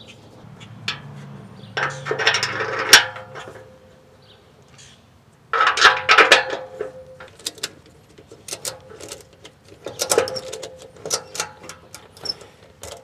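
Steel exhaust pipe and muffler clanking and scraping together as the flange joint is worked into line around a new gasket, in several bursts of knocks with brief metallic ringing.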